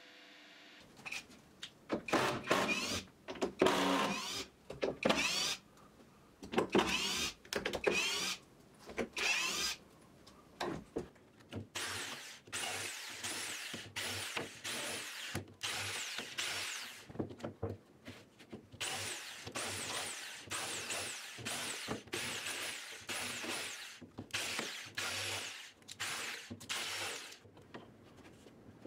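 Electric jigsaw cutting plywood in short bursts, the motor speeding up and slowing down with each pull of the trigger. It starts about a second in with louder, uneven cuts, then settles into a steady run of brief bursts.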